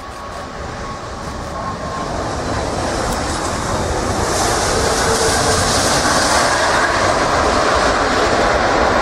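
Jet engine noise from an Airbus A340-600's four Rolls-Royce Trent 500 engines as the airliner rolls out on the runway just after touchdown. It is a steady rushing rumble with a hiss on top, growing louder through the first half and then holding loud.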